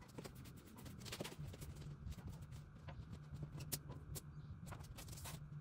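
Faint, irregular light taps and clicks from wiping down a table with a wet rag, over a low steady hum.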